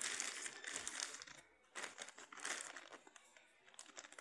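Plastic courier mailer bag crinkling as it is handled and turned over, in two bouts: one of about a second and a half at the start, and a shorter one about two seconds in.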